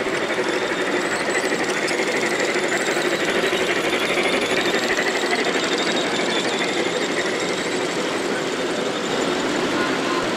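G-scale model trains running on the layout's track close by: a continuous fast mechanical rattle of wheels and motor gearing.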